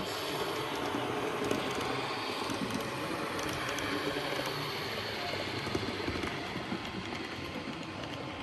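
Model train running on a layout: a DSB diesel locomotive model pulling red passenger coaches, heard over the steady background noise of a large hall.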